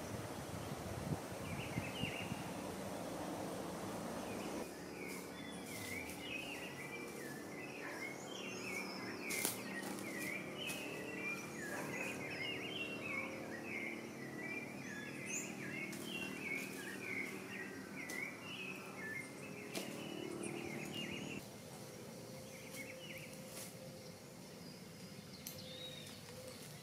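Woodland ambience with many small birds chirping: a dense run of short calls from about five seconds in until about twenty-one seconds in, over a steady low drone. The first few seconds hold a broad rushing noise instead. The sound changes abruptly twice, as at edit cuts.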